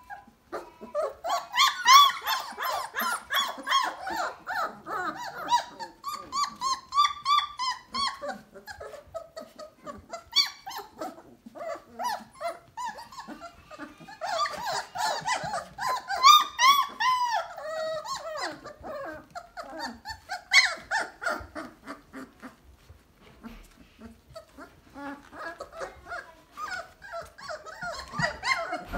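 A litter of three-week-old basset hound puppies calling over one another in high, squeaky, pitch-bending cries. The calls come in two loud bouts, the second about halfway through, then grow sparser and quieter toward the end.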